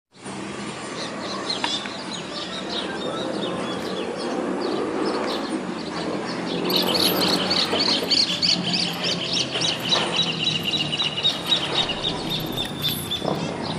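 Birds chirping in quick repeated trills, loudest from about halfway through, over a steady low drone from the approaching Cessna 206H's piston engine and propeller.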